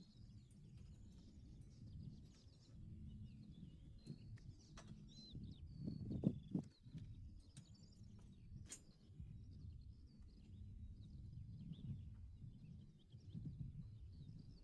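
Small birds chirping over a low rumble of outdoor background noise, with a louder knock about six seconds in and a few faint clicks.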